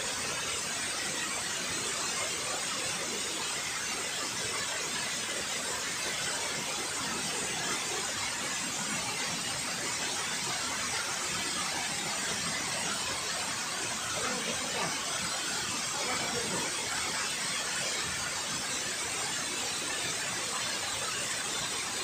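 Water pouring steadily over a concrete dam spillway, a constant rushing hiss that does not let up.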